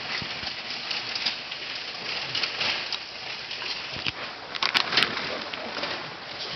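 Water splashing and spattering steadily, with two sharp slaps close together about three-quarters of the way through.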